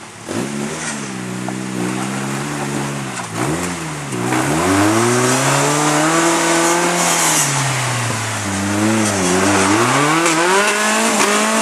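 Off-road rail buggy's engine revving up and down as the throttle is worked while it crawls up rocks, its pitch swinging repeatedly. It gets louder about four and a half seconds in.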